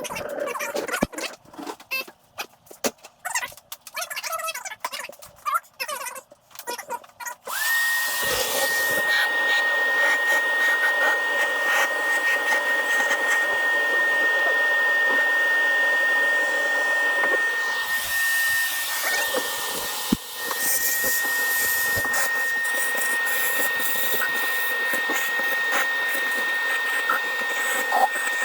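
Scattered clicks and light knocks of parts being handled. About seven seconds in, a small electric motor tool starts up and runs steadily with a high, even whine.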